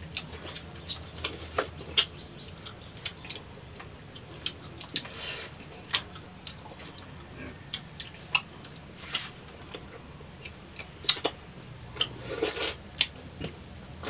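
Eating sounds of santol fruit: irregular wet clicks and smacks from mouths sucking and chewing the pulp, with a few short slurps.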